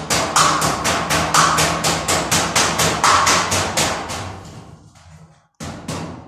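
Hammer blows on a metal door frame, fast and even at about four or five a second, each with a metallic ring. They stop about five seconds in, then a few more blows follow.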